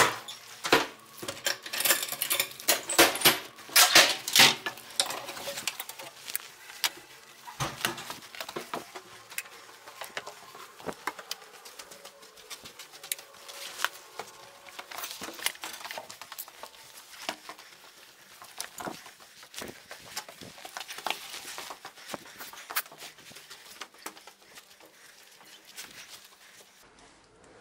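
Irregular clatter of hard objects knocking and clinking, thick and loud in the first five seconds, then scattered knocks that thin out.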